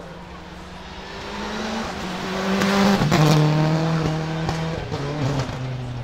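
Subaru Impreza S7 WRC rally car's turbocharged flat-four engine accelerating hard as it passes close by, growing louder to a peak about halfway through, with a few sharp cracks at the peak. Its pitch then drops in steps as it pulls away.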